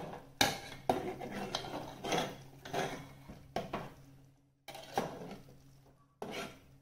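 A steel spoon stirring prawn curry in an aluminium pot, scraping and clinking against the metal sides in irregular strokes about every half second to a second.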